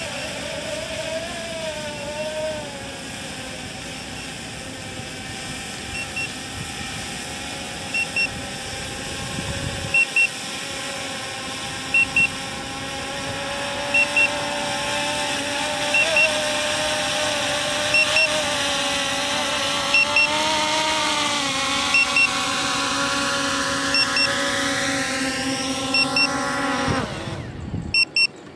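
Cfly Faith 2S quadcopter's propellers buzzing steadily as it descends on automatic low-battery return-to-home. A double warning beep sounds about every two seconds. Near the end the motor pitch shifts and the buzz cuts off.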